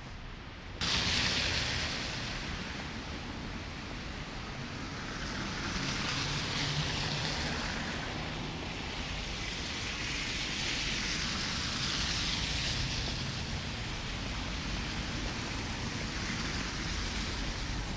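Snowstorm street ambience: a steady hiss of wind and slushy traffic that swells and eases every few seconds over a low rumble, starting abruptly about a second in.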